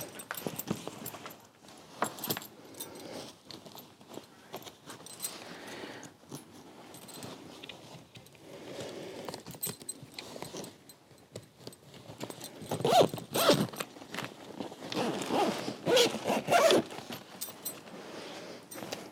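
Handling of an Uppababy Vista bassinet's fabric apron cover as it is fitted: rustling, light clicks and scrapes, with a run of louder rasping strokes in the last few seconds.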